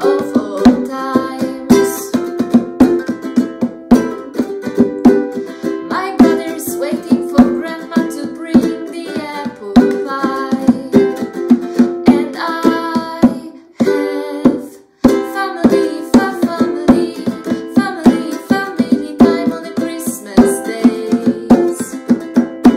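Ukulele strummed with a hand drum beating along and a woman singing. About fourteen seconds in the music stops for a moment, then starts again.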